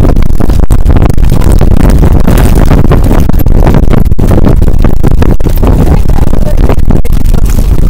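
Loud, continuous rumbling of wind and road noise on the microphone of a camera riding on a moving bicycle trailer, heaviest in the lows, with a few brief dropouts.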